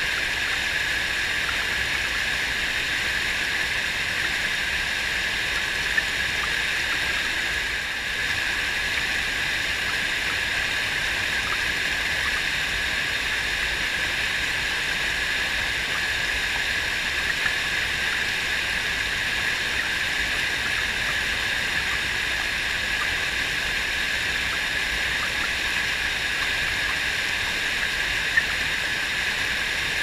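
Mountain stream rushing steadily over rocks, a constant hiss of flowing water. Three brief ticks stand out.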